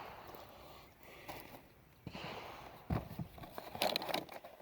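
Handling and loading a break-action shotgun: rustling, with a sharp click about three seconds in and a short run of metallic clicks near four seconds.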